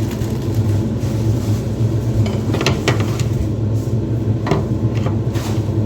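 A steady low hum of a running kitchen appliance, with a few short knocks and clinks of dishes about two and a half to three seconds in and again near four and a half seconds.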